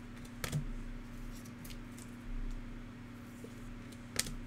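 Plastic trading-card pack wrapper crinkling and cards being handled and flipped through, with sharp crackles about half a second in and near the end. A steady low electrical hum sits underneath.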